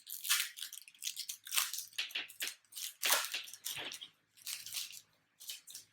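Foil wrapper of a Pokémon trading-card booster pack crinkling as it is torn open and handled, in a quick series of short rustles.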